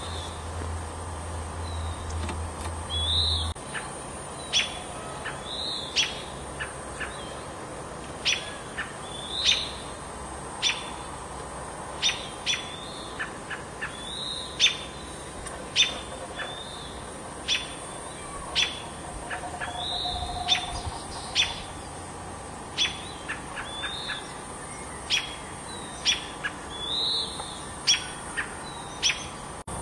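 Small birds calling over and over: short, sharp chip notes about once a second, with a louder slurred call every few seconds.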